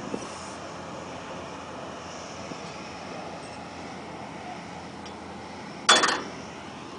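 Steady engine drone of a river ferry's push tugboat under way, with wind noise. About six seconds in there is one brief loud bump.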